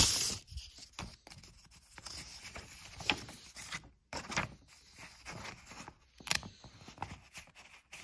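Paper rustling and crinkling as an envelope is torn open and the folded card letter inside is unfolded and handled, in short irregular bursts; the loudest tear comes right at the start.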